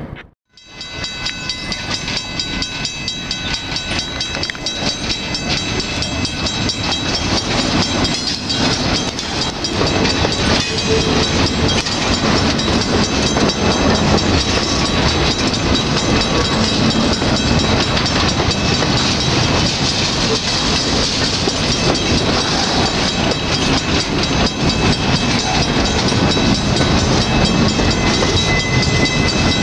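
Freight train of boxcars rolling past close by: a steady rumble and clatter of steel wheels on the rails, growing louder over the first several seconds and then holding.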